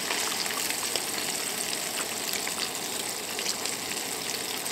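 Hot oil sizzling steadily with faint crackles as breaded squirrel pieces deep-fry.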